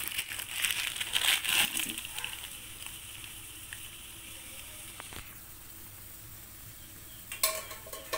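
Water boiling in a metal wok around blocks of instant noodles and okra pods, a steady bubbling hiss. There is a crackling rustle in the first couple of seconds and a sharp click near the end.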